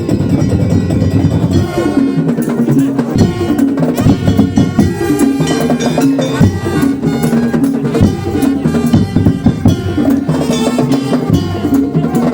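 Madurese daul music: drums and struck percussion keep a busy rhythm under a held melody line.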